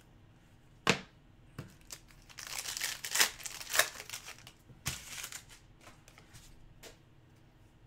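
Foil wrapper of an Upper Deck Ice hockey card pack being torn open and crinkled by hand, in several crackling bursts over about three seconds. A single sharp tap comes about a second in.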